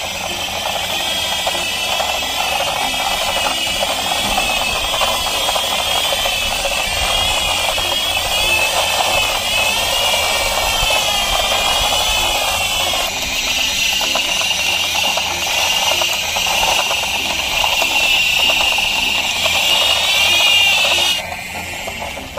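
Toy missile-launcher truck being pushed by hand: its friction-motor gears rattle, with a high warbling tone over them that cuts off suddenly near the end.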